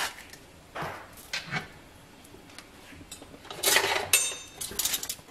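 Scattered light knocks and clinks of kitchenware as a ceramic bowl of raw chicken is handled over the frying pan, with a short ringing clink near the end.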